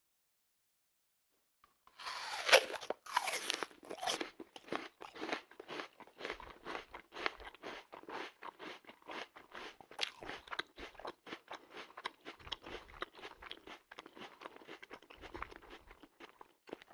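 Cartoon sound effect of an apple being eaten: a loud crunching bite about two seconds in, then rapid, steady crunching chews that continue until just before the end.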